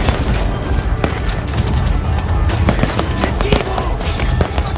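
Pyrotechnic battle effects: a rapid, irregular string of bangs and crackles from fireworks and mock gunfire, with music playing underneath.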